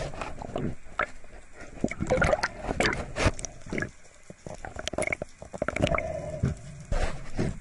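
Underwater handling noise of a speared fish on a speargun shaft being grabbed by the diver: irregular knocks and clicks, with a few short humming tones.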